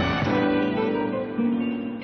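Music: a fuller transition cue fades out and a solo acoustic guitar comes in, playing single plucked notes.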